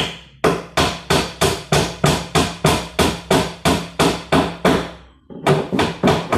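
Hammer driving nails into the wooden feet at the base of a plywood shelf unit, with steady strikes about three a second. The strikes break off briefly near the end, then start again.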